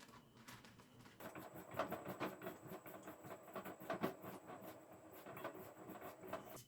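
Food sizzling and crackling in a hot pan, starting about a second in over a faint steady high whine, and cutting off abruptly at the end.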